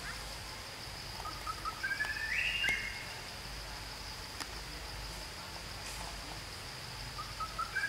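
Forest ambience: a steady high-pitched insect drone, with a bird singing a short phrase of notes that climbs in pitch about a second and a half in and again near the end.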